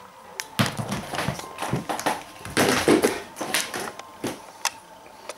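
A Cane Corso tussling with a slipper on a laminate floor: irregular taps, knocks and scuffles of paws, claws and the slipper on the floor, with the loudest cluster of scuffling about three seconds in.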